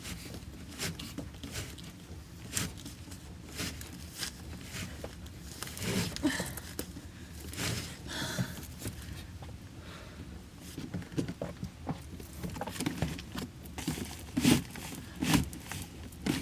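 Handling noise from working on electrical wiring: irregular clicks, taps and rustles, with two louder knocks near the end.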